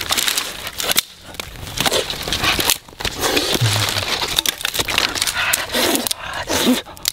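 Dry twigs and leaves crackling, rustling and snapping as they are handled and laid between stones for a fire.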